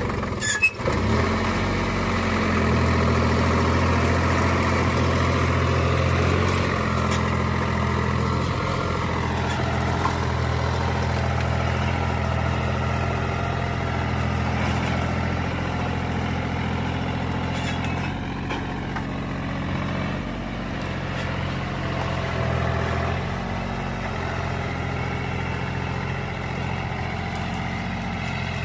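John Deere tractor's diesel engine running steadily under load as it drags a lowered tine cultivator through deep mud, growing a little fainter in the second half. A single sharp knock sounds just under a second in.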